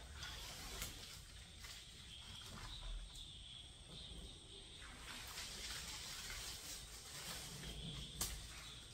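Protective plastic tape being peeled off the frame of a new UPVC sliding glass door: faint rustling with a few short ripping sounds as the strips come away.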